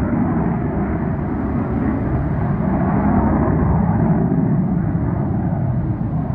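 Jet rumble from a McDonnell Douglas F-15C Eagle's twin Pratt & Whitney F100 turbofans as the fighter climbs away after takeoff. A steady, deep rushing noise that swells slightly around three to four seconds in.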